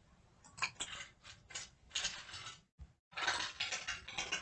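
Typewriter sound effect playing back: irregular typewriter keystrokes clacking, single strikes at first, then a denser run of keystrokes about three seconds in.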